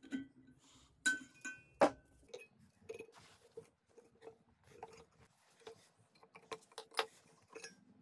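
Metal clinking, tapping and rattling as the motor and pump assembly of a cut-open refrigerator compressor is worked loose with pliers and gloved hands inside its steel shell. The sharpest knock comes just under two seconds in, followed by a run of lighter clicks and small rattles.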